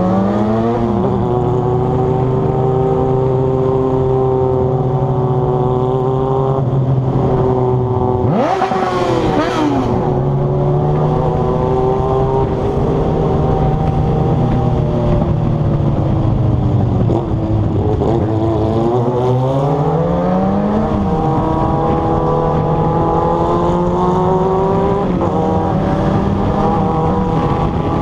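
Inline-four motorcycle engine running continuously at speed, its pitch holding steady for long stretches and stepping up or down now and then. A falling pitch sweeps through about nine seconds in, and the engine note dips and climbs back around two-thirds of the way through.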